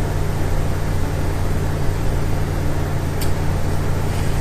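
Steady low machine hum with a hiss over it, and one small click about three seconds in.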